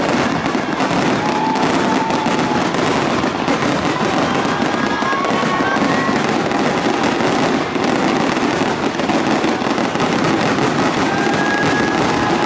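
Fireworks display: a dense, unbroken barrage of shell bursts and crackling.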